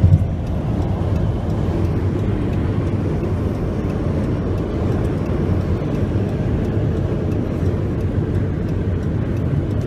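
Helicopter flying low overhead, a steady low rumble heard from inside a car and mixed with car noise, with a brief thump right at the start.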